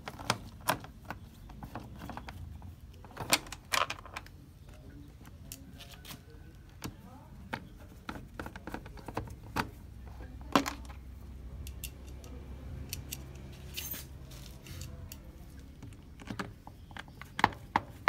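Irregular sharp clicks and taps of a screwdriver and the plastic control-panel housing of a washing machine being handled while its control circuit board is fitted back in.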